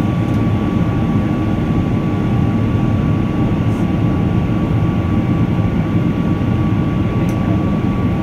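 Rolls-Royce Trent 800 engines of a Boeing 777-300 running at climb power just after take-off, heard inside the cabin: a steady, loud, deep rush with a thin steady whine above it.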